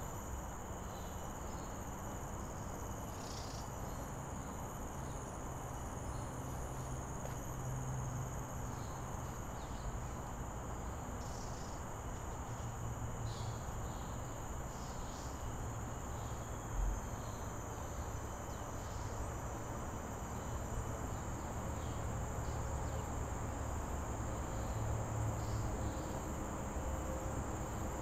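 Steady high-pitched chorus of forest insects, with scattered short chirps over it and a low rumble underneath; one low thump a little past halfway.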